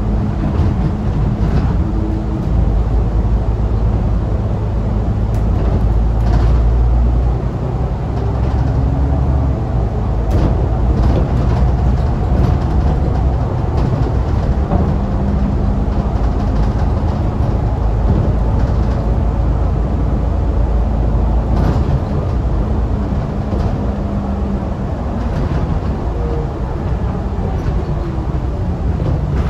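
Alexander Dennis Enviro500 MK2 double-decker bus's Euro 3 diesel engine and drivetrain running as the bus drives, heard from inside the lower deck. It is a steady low rumble with a faint hum and scattered clicks and rattles.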